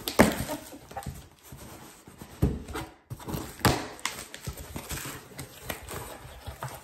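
Cardboard mailer being handled and opened: rustling scrapes and a few dull knocks, the strongest about a quarter second in, then near two and a half and just under four seconds.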